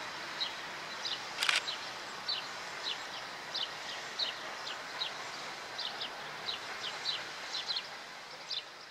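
A small bird chirping over and over, short high notes about two to three a second, over a steady background hiss. A single brief sharp noise comes about a second and a half in.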